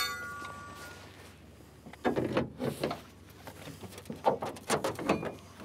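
A steel pry bar clinking with a brief metallic ring as it is picked up, then knocking and scraping against the car's body and open hood in several irregular bursts.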